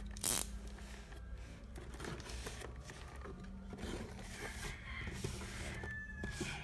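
Faint rustling, scraping and small clicks of packaging being worked open by hand, with one short louder rustle or rip just after the start.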